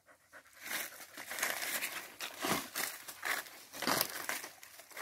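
Dry fallen leaves crunching and rustling in a run of irregular crackles, loudest about halfway through and again near the end.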